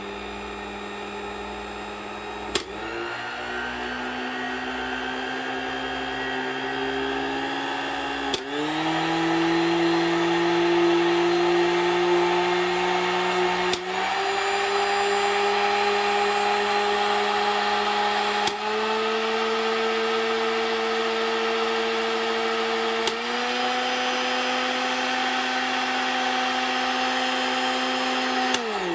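1970s Panasonic MX-280 blender running with an empty jar, stepped up through its push-button speeds: a button click about every five seconds, each followed by the motor's whine jumping a step higher in pitch and louder. Near the end a last click switches it off and the whine starts to fall as the motor slows.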